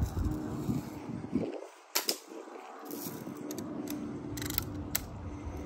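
Lever-action BB rifle firing: a sharp snap about two seconds in and another near the end, with a short rasp just before the second, over a low rumble.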